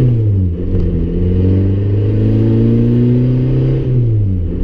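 Volkswagen TDI turbodiesel engine pulling the car under acceleration. Its pitch climbs slowly and drops sharply twice, just after the start and near the end, as the manual gearbox is shifted up.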